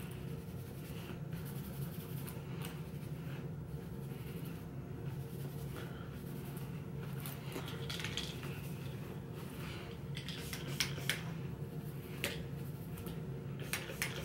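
Redken texturizing spray in a pump-spray bottle clicking and spritzing a few short times as it is worked into hair by hand, with soft handling and rustling noise over a low steady hum.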